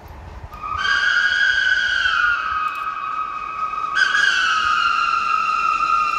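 SNCF 241 P steam locomotive's whistle blowing two long blasts. Each starts higher and slides down a little in pitch partway through.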